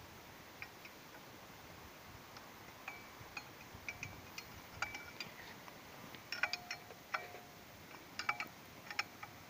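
Metal wrench clinking against the pulley and its nut on an irrigation pump engine, a scattering of sharp ringing clinks that come in clusters from about three seconds in, as the pulley is worked loose to be replaced.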